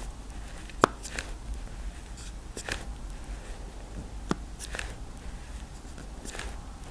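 Samsung Galaxy Z Fold 3 hinge clicking as the phone is folded and unfolded: six sharp clicks, mostly in pairs. The owner takes this spring-like hinge click for a possible fault and does not know whether it is normal for the model.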